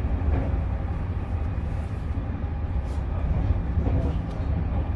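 Interior running noise of a Trenitalia ETR 104 electric multiple unit under way: a steady low rumble of the wheels on the rails.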